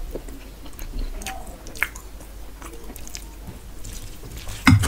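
Fingers squishing and mixing rice into rohu fish curry on a steel plate, with short wet clicks and squelches. About four and a half seconds in there is a louder knock, like a small steel bowl being set down on the table.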